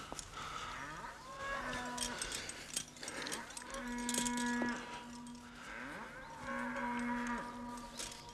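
Cattle mooing: several drawn-out calls, the longest and loudest a little past the middle, with scattered clicks in between.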